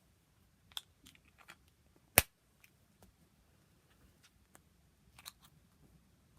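Small plastic fidget toys being clicked and snapped by hand: a few scattered light clicks, and one sharp, loud snap about two seconds in.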